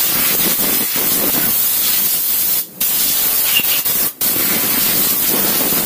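Compressed-air blow gun blasting a steady, loud hiss, clearing chips from a CNC milling machine's table and vise. The air cuts off briefly twice, a little under three seconds in and again about four seconds in, giving three long blasts.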